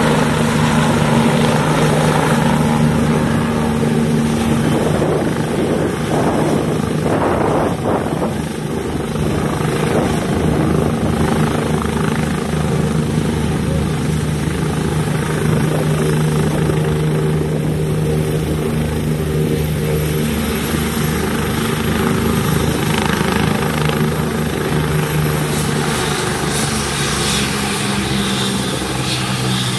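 Helicopter descending and settling onto its skids, rotor and engine running loud and steady, with a thin high whine that slowly drops in pitch.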